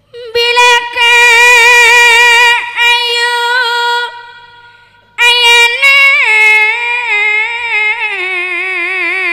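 A female vocalist singing a Madurese gending melody, almost unaccompanied, with strong vibrato. The first phrase is held on one high note. After a short break, a second phrase steps down in pitch to a lower note that she holds with wide vibrato.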